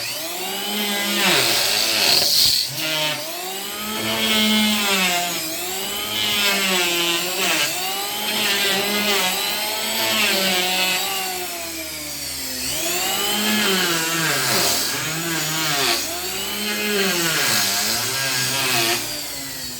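Power wood planer running and cutting wood, its motor pitch rising and falling about once a second as it works.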